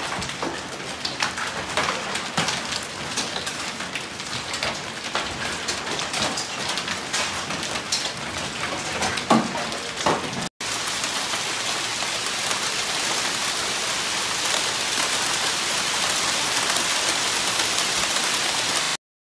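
Hail storm: for the first half, sharp scattered impacts of hailstones on pavement and cars over a steady hiss of falling hail. Then, after a cut, a dense, even hiss of hail pouring onto a shingled roof, which stops abruptly just before the end.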